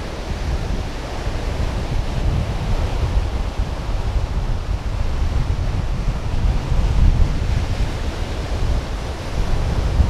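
Wind buffeting the microphone in gusts over the steady wash of surf.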